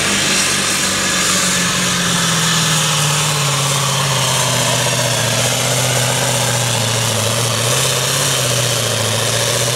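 Scania 142 pulling truck's diesel engine running hard as it drags a truck-pulling sled, its note slowly falling as the load builds.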